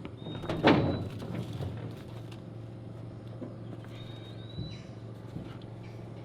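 A loud thud a little under a second in, then a bird's thin high whistle, rising slightly at its end, over a steady low hum.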